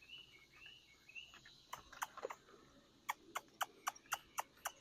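A bird chirping several times in short arched notes, then a run of sharp, evenly spaced clicks at about four a second, starting near the middle.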